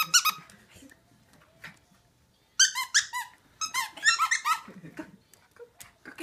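Squeaker inside a plush dog toy squeaking in two quick runs of short, high squeaks as a toy poodle chomps and tugs on it, about eight to ten squeaks in two seconds midway through.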